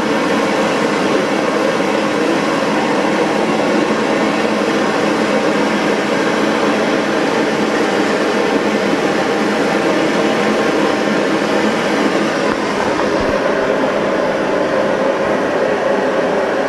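Steady, loud machinery noise with a hum of several pitches, from the Tuxham hot-bulb semidiesel engine and the equipment around it.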